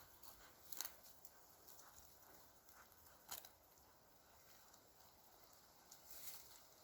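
Near silence with a few faint, short clicks, about three over several seconds.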